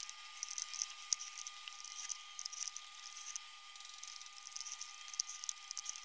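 Lemon halves squeezed in a hand-held metal lemon press, with the juice dripping into a plastic electric kettle: faint, irregular squelches and patter.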